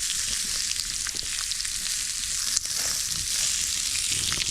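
Thick loin steak sizzling and spitting on a hot iron plate over a campfire, a steady frying hiss full of fine crackles.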